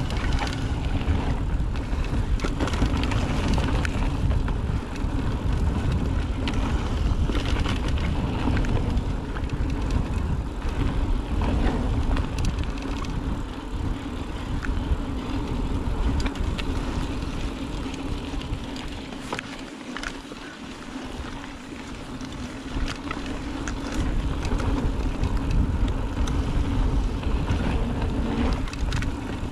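Mountain bike descending a dirt and rock trail: heavy rumble of wind on the microphone and tyres over the ground, with scattered clattering as the bike rattles over rough spots. It eases briefly about two-thirds of the way through.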